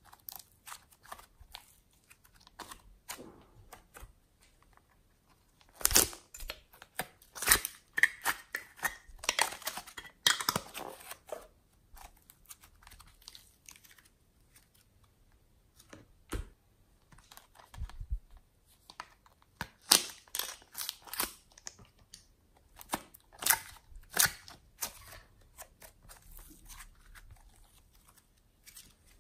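Soft clay and glossy slime being squeezed and stretched by hand. It makes scattered sticky crackles, clicks and tearing sounds in short clusters, with quiet gaps between them.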